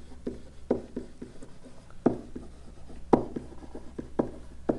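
Pen stylus writing on a digital ink surface: a quick, irregular run of light taps and short scratches, about three or four a second, as a line of words is handwritten.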